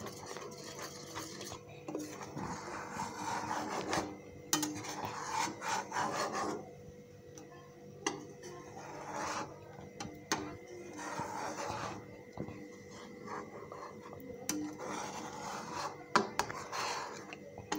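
A spoon scraping and stirring around the bottom and sides of a kadai of boiling milk, in irregular strokes with an occasional knock against the pan, keeping the milk from sticking as it thickens.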